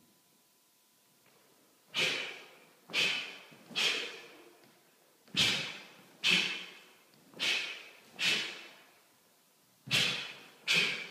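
Taekwondo pattern techniques, each marked by a sharp burst of sound from the snap of the cotton dobok and a forceful exhale. There are nine bursts about a second apart, several in quick pairs, each dying away over about half a second.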